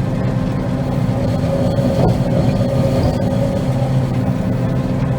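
Combine harvester running steadily while cutting soybeans, its engine and threshing machinery making a constant drone.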